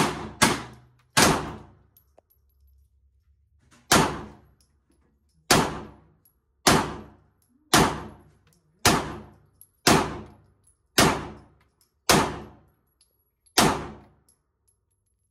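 Handgun shots in an indoor range lane, about a dozen sharp reports each followed by a short echo. The first three come in quick succession, then the rest at a steady pace of roughly one a second.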